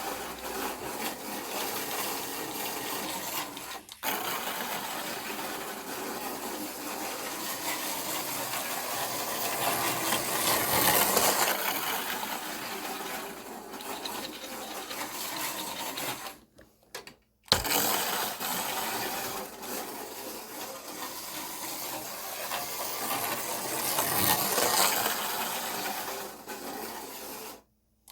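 Micro slot cars running laps on a plastic slot track: a busy whirring rattle of small electric motors and wheels that swells and fades as the cars pass. It cuts out about 16 seconds in, comes back a second later with a sharp click, and stops shortly before the end.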